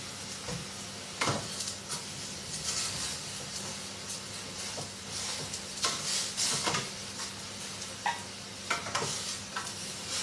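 Food sizzling in a pan while it is stirred, a utensil knocking and scraping against the pan now and then, about half a dozen times.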